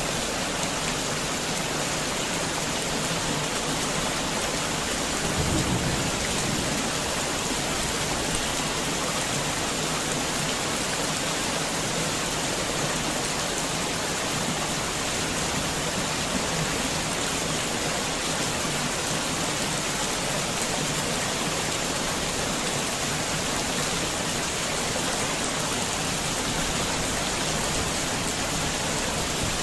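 Heavy rain falling steadily, an even hiss of drops on surfaces, with a brief low rumble about five seconds in.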